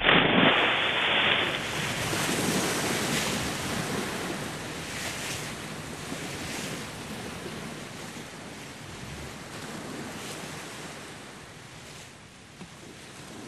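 Ocean surf: waves washing in with a steady rush that swells now and then, fading gradually.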